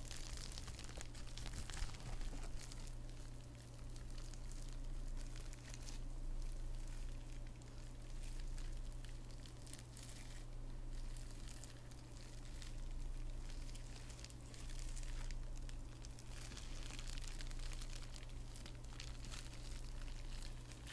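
Bubble wrap squeezed and rubbed between fingertips: a continuous fine crinkling crackle that swells and eases every few seconds, over a steady low hum.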